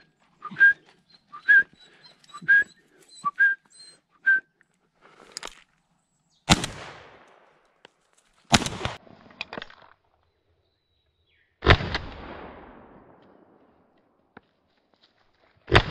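A run of short whistled notes, about one a second, then four shotgun shots at passing thrushes, each followed by a fading echo. The first shot comes about six and a half seconds in, the next two come two and three seconds apart, and the last is near the end.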